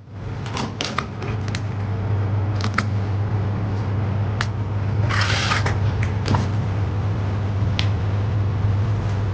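Scattered small clicks and taps of tools and parts being handled during a laptop repair, with a short rustle about five seconds in, over a steady low hum.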